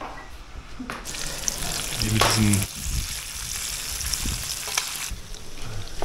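Small cubes of food sizzling as they fry in a metal pan. The sizzle sets in suddenly about a second in and stops about a second before the end, with a few light clicks through it.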